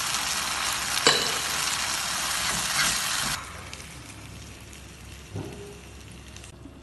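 Chicken and mixed-vegetable stir-fry sizzling in a non-stick wok as it is stirred with a wooden spatula, which knocks against the pan about a second in and again near three seconds. Just after three seconds the sizzle falls abruptly to a much quieter level.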